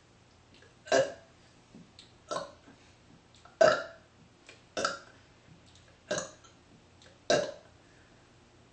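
A woman burping six times in a row, each burp short and loud, about every second and a quarter. These are gassy burps forced up one after another after drinking a lot of soda.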